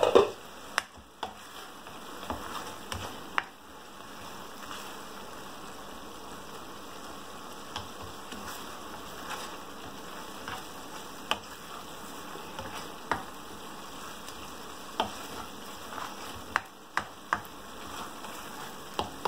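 Thick chili-garlic paste sizzling steadily in oil in a non-stick frying pan as it cooks down until the oil separates, with a black spatula stirring it and now and then clicking and scraping against the pan, the clicks bunching together near the end. A sharp clatter at the very start as the glass lid comes off the pan.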